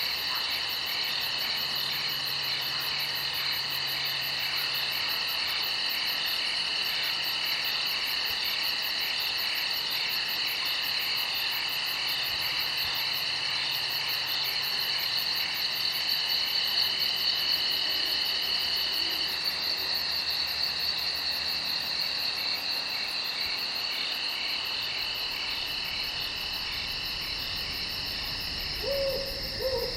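Crickets chirping in a steady night chorus of overlapping high trills. Near the end come two short, lower calls from another animal.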